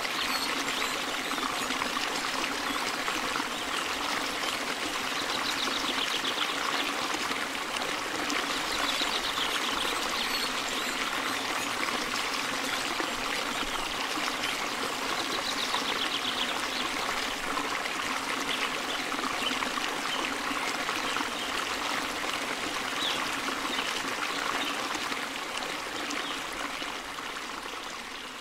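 A steady rushing noise, like running water, fading out near the end.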